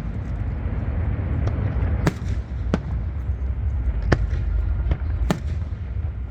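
Fireworks exploding: about half a dozen separate sharp bangs, roughly a second apart, over a steady low rumble.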